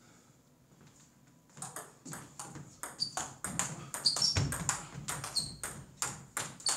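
Table tennis rally: the ball clicking off the rackets and the table in a quick, uneven run of sharp taps that starts about a second and a half in.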